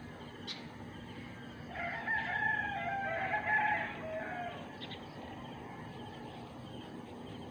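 A rooster crowing once, a drawn-out call of about two and a half seconds starting about two seconds in.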